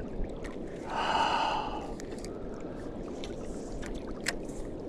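A man's loud, breathy sigh of frustration about a second in, just after a big fish has thrown the hook, over a steady low rush of wind. A sharp click sounds just after four seconds.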